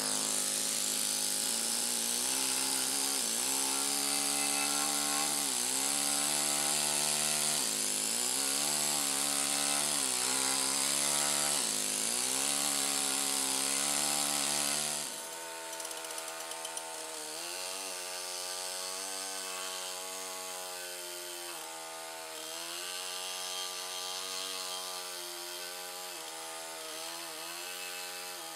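Pneumatic stone-carving hammer driving a chisel into limestone: a continuous rapid buzzing whose pitch wavers up and down, over a strong hiss. About halfway through the level drops and the hiss fades, and the buzzing carries on.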